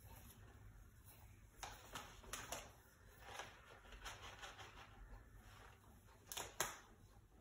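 Faint scrapes and clicks of a spoon stirring a pot of thick, melting cheese sauce, several light strokes with a sharper pair near the end.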